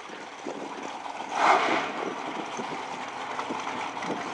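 Steady outdoor rushing noise with wind on the microphone, and a short, louder hiss about a second and a half in.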